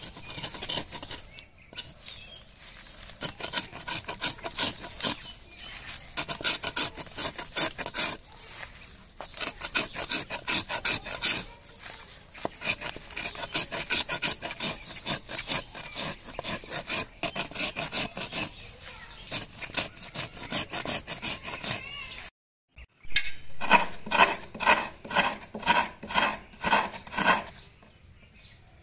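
Curved iron blade scraping the last husk fibres off a coconut shell in repeated rasping strokes. After a short break about 22 seconds in, coconut flesh is grated out of a half shell against a metal scraper in even strokes, about two to three a second, that fade near the end.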